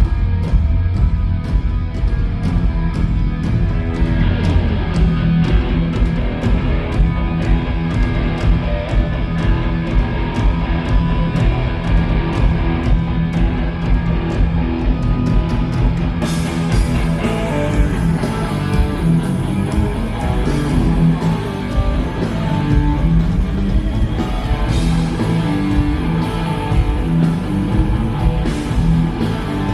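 Rock band playing loud during a sound check, electric guitar over bass and drums. Evenly spaced ticks keep time through the first half, and about sixteen seconds in the sound turns brighter and fuller.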